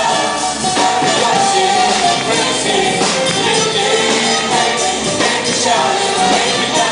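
Christian worship song played by a full band, with singing over a steady beat.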